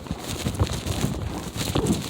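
Footsteps crunching through snow, an irregular series of low thuds.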